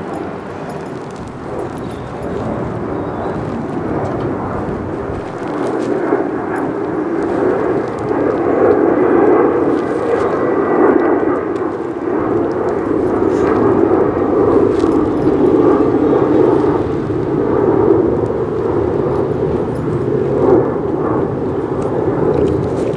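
A steady engine-like rumble that builds over about the first eight seconds and then holds loud.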